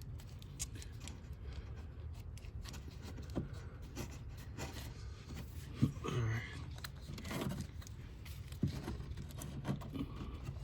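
Faint scattered clicks and scrapes of a fuel-line quick-disconnect release tool being worked against a fuel line fitting, with a few sharper knocks, over a steady low hum.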